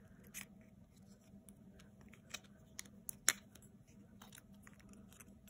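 Faint, scattered clicks and taps of a Calamus X2 baitcasting reel as its side plate is opened and the spool is pulled out by hand, with the sharpest click a little after three seconds in.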